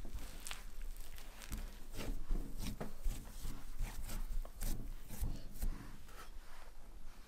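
Hands kneading potato gnocchi dough of riced purple potato, egg and flour on a metal countertop: soft, irregular rubbing and scraping sounds.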